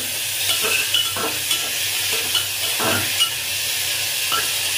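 Onions and mushrooms sizzling in oil in an aluminium pressure cooker pan while a spoon stirs them, scraping and knocking against the pot several times at irregular intervals over a steady frying hiss.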